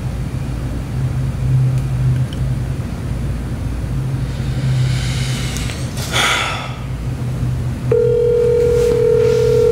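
Telephone ringback tone on a phone's speaker: one steady ring of about two seconds starting near the end, while a call is being placed. Under it a constant low hum, with a short burst of rustling noise a little past halfway.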